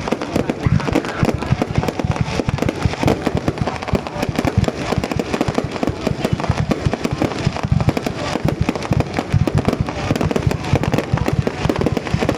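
Fireworks going off in a dense, continuous volley of rapid bangs and crackles, many per second without a break.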